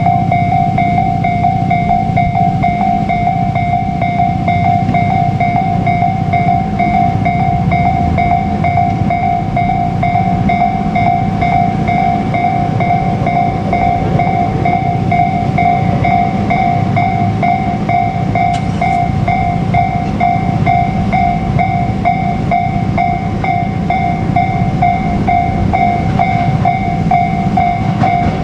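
Japanese level-crossing warning bell ringing in a fast, regular repeating beat, signalling that a train is approaching, over a continuous low rumble.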